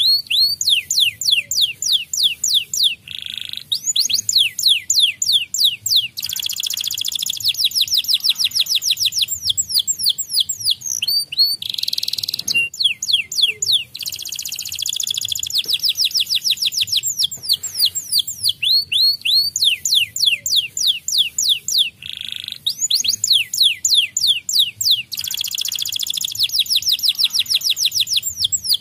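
White canary singing a long song: strings of quick sweeping chirps broken by stretches of very fast, dense trills, with a short buzzy note about halfway through.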